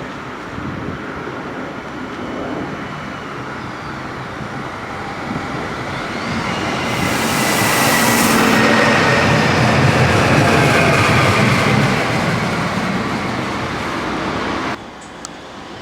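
A train running past, growing louder to a peak about halfway through, with a low rumble under a high, slowly falling whine. It cuts off suddenly near the end.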